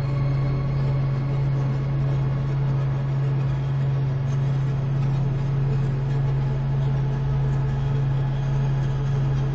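Ambient drone music: a loud, steady low electronic drone tone with a gentle pulse in its loudness and a faint hiss above it.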